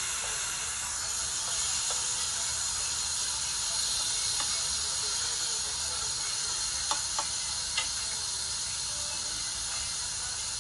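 Meat sizzling on a tabletop Korean barbecue grill, a steady hiss, with three light clicks of metal tongs on the grill a little past the middle.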